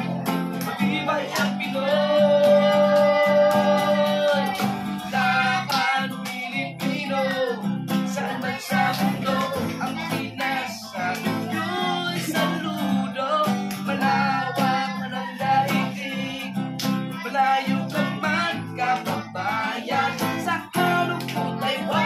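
A man singing while strumming an acoustic guitar, holding one long note about two seconds in.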